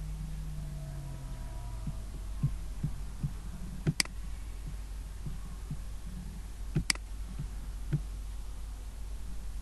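Steady low electrical hum, with a few soft low thumps and two sharp mouse clicks, about four and seven seconds in.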